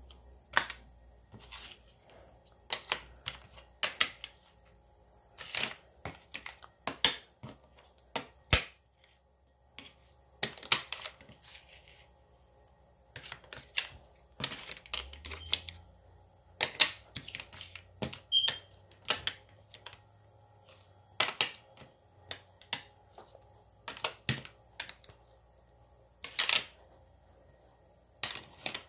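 Irregular sharp clicks and taps of toy pieces being handled and set down on a hard surface: foam numbers and letters and a plastic magnetic tile being moved about.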